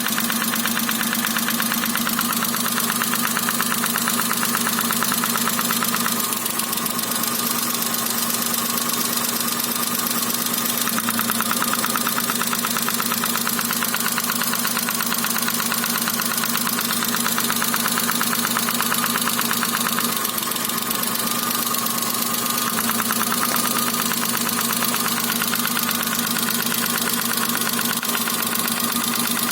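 Daewoo Matiz 0.8 three-cylinder engine idling with a fast, rhythmic knock, a knock in cylinder 1 that the owner ties to the ignition module. The engine note shifts slightly a few times.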